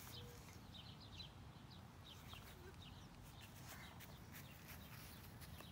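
Near silence with faint, scattered short bird chirps.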